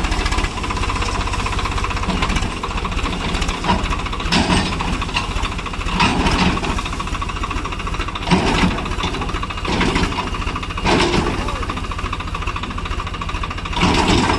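Swaraj tractor's diesel engine running with a steady low, rapid clatter, rising into several short louder bursts.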